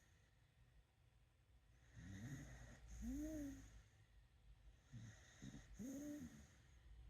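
A dog snoring: two slow breaths, about two and five seconds in. Each is a rasping snore with a short tone that rises and falls in pitch.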